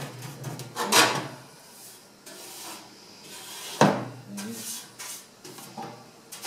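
A paintbrush brushing soot off the underside of a wood stove's metal top plate, in short rubbing strokes, with a louder rasp about a second in. A sharp knock near four seconds in as the plate is shifted on the stove.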